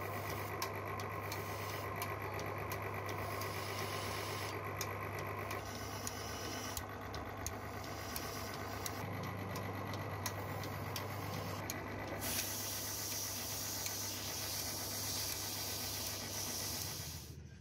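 A machine motor running with a steady hum and scattered light ticks; about twelve seconds in a hiss joins, then cuts off abruptly near the end.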